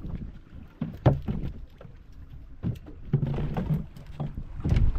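Small fishing boat at sea: uneven low rumble of wind and water on the microphone, with scattered knocks and thumps on the hull, the sharpest about a second in.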